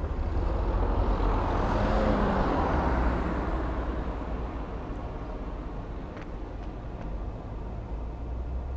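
Outdoor background noise with a steady low rumble and a broad hiss that swells over the first couple of seconds, then slowly fades. There is no motor whine.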